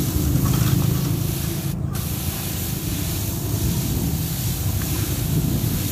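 Pesticide sprayer lance hissing steadily as it sprays liquid onto seedlings, over a steady low hum.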